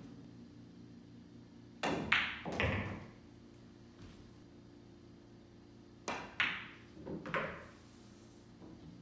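Two pool shots about four seconds apart. Each is the tap of the cue tip, a sharp click of the cue ball on the object ball, then the knock of the ball dropping into a pocket. A low steady hum runs underneath.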